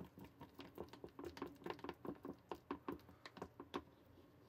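A small stirrer tapping and scraping against a warming cup as a melting mixture is stirred: faint, quick, irregular light clicks, several a second.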